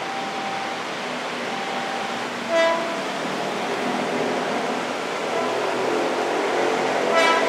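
KRL Commuter Line electric train passing, its running noise building from about halfway through. It sounds two short horn toots, one a little after two seconds in and one near the end.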